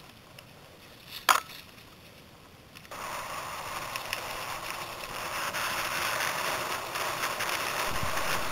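Mountain bikes rolling down a dirt trail covered in dry leaves: a steady rushing, crunching noise of tyres over leaves and gravel that starts abruptly about three seconds in and slowly grows louder. Before it, a fainter stretch with a single sharp click.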